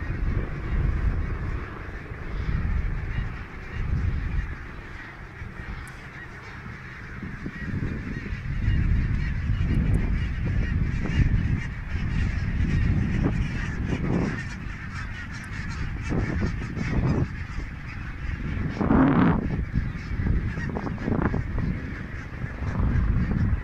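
A large flock of geese in flight calling, a dense, continuous chorus of honks with one louder call about nineteen seconds in. A gusting low rumble of wind on the microphone runs beneath.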